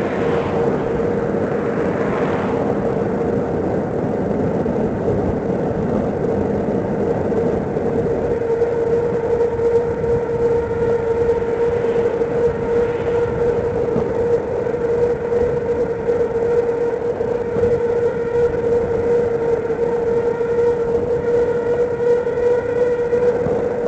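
Steady wind and road noise on a bicycle-mounted camera riding along a highway shoulder, with a steady hum throughout. Cars pass in the other lane, swelling up and fading near the start and again about twelve seconds in.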